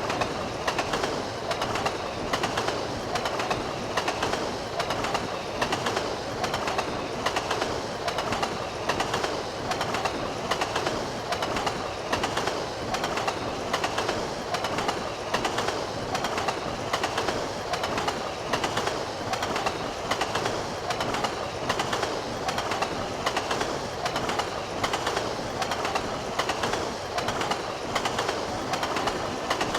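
Train wheels running over rail joints: a steady, rhythmic clickety-clack over continuous rolling noise.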